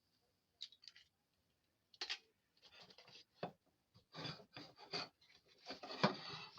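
Plastic bag of cracked eggshells being squished and crinkled by hand, in a run of irregular rustles and crunches, the busiest about two, four and six seconds in.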